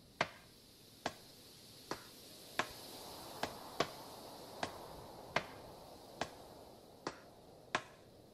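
Footsteps on hard pavement: a sharp step a little more than once a second, stopping near the end, over a faint steady hiss.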